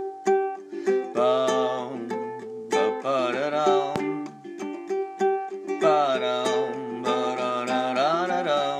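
Ukulele playing a picked riff of repeated notes. A second, wavering melody line comes in over it four times.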